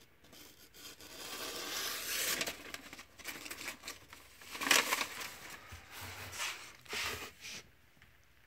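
A freshly sharpened Schrade knife slicing through thin phone-book paper, the page hissing and crinkling in uneven strokes, loudest about five seconds in. It is a paper-cutting test of the new edge.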